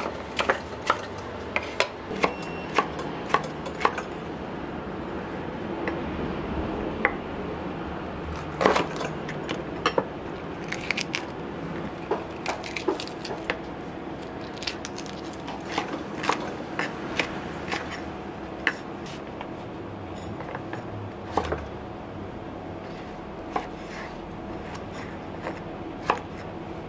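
A chef's knife chopping bell peppers and okra on a wooden cutting board: irregular sharp knocks of the blade striking the board, sometimes in quick runs, with pauses between.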